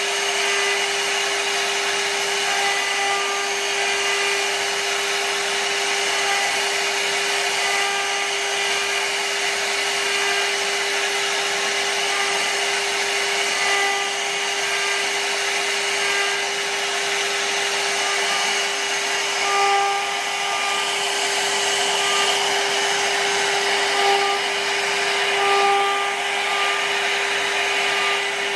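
CNC router spindle running steadily with a constant whine as its small carving bit cuts a relief pattern into a wooden panel, with a continuous hiss from the cut.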